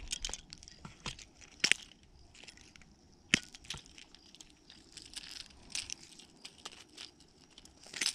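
Fishing pliers working on a hard-bodied lure's treble hooks: a scatter of sharp metal clicks and snaps with light handling rustle, two louder snaps about one and a half and three seconds in.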